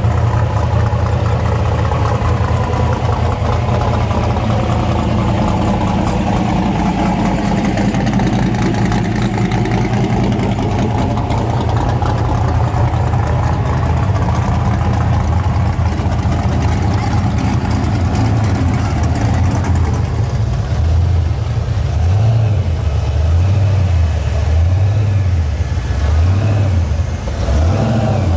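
Hot rod engine running at low speed as the car creeps past, a loud steady rumble whose pitch sways gently up and down. Over the last several seconds it turns into a choppier, pulsing rumble of about one beat a second.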